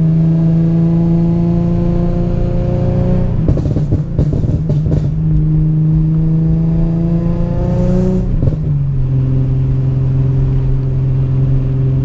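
Infiniti G37's 3.7-litre V6 heard from inside the cabin, pulling twice under moderate throttle with its pitch rising slowly each time. Each pull ends in a burst of exhaust crackles and pops as the throttle lifts for the shift, about three and a half and eight seconds in, and the engine then settles to a steady cruise at lower revs.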